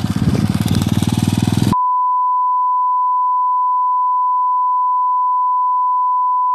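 A motorcycle engine runs for a little under two seconds, then cuts off abruptly. A steady, unbroken test tone (bars-and-tone) follows and holds to the end.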